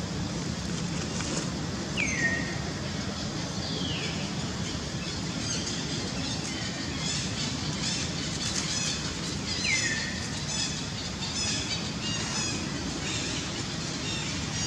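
Several short high squeals, each falling in pitch, a few seconds apart, with rapid high bird-like chirping through the middle and a steady low rumble of background noise.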